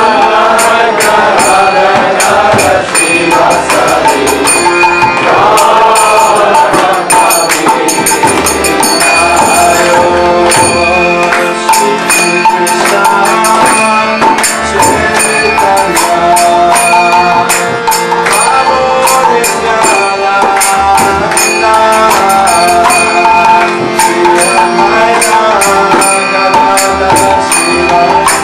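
Devotional chanting music in the style of a kirtan: voices singing over a steady beat of jingling hand percussion, starting suddenly and running loud.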